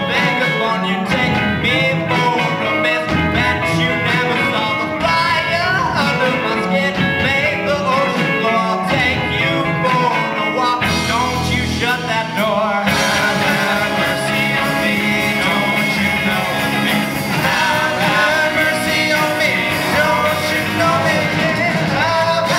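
A rock band playing live, with singing over guitars, bass and drums. The arrangement changes about thirteen seconds in.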